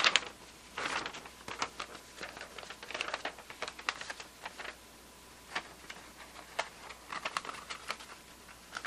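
A string of light, irregular clicks and taps from hands handling small objects at a workbench, in a small room.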